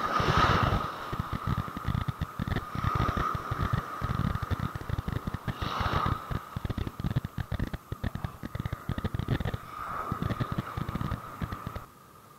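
Wind buffeting a camera microphone over surf, with waves washing in and swelling every few seconds.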